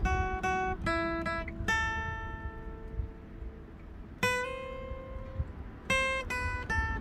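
Acoustic guitar playing picked notes, with a chord left ringing for about two seconds, then a held note, then quicker picking again near the end. A low rumble runs underneath.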